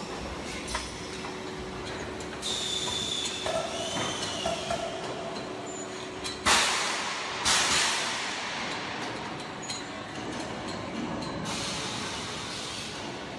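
Sand-moulding machinery running in a foundry: a steady mechanical rumble, with a brief high squeal about three seconds in and loud hissing blasts, the strongest two about six and a half and seven and a half seconds in, and another near the end.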